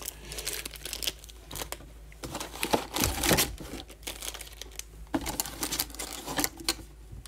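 Foil-wrapped 2018-19 Panini Select basketball card packs crinkling and rustling as they are handled and lifted out of their cardboard hobby box, in irregular crackles and taps, loudest about three seconds in.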